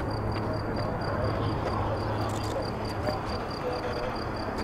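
Distant F-35A's Pratt & Whitney F135 jet engine, a steady low rumble as the aircraft comes in on approach. A high, evenly repeating chirp sounds over it.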